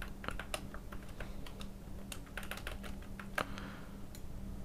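Scattered, irregular keystrokes on a computer keyboard while text is being edited, over a steady low hum.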